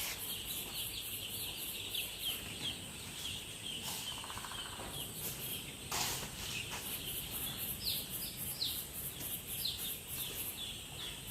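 A brood of five-day-old chicks peeping continuously, many short falling chirps overlapping, with a single knock about six seconds in.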